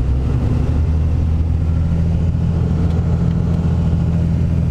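Second-generation Cummins diesel truck engine running steadily with a low, even hum.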